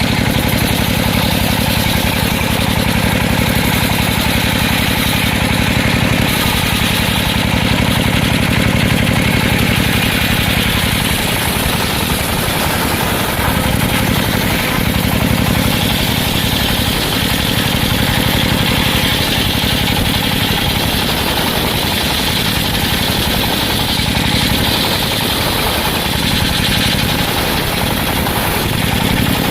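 Circular sawmill's engine running steadily, with a higher whine that grows stronger about halfway through.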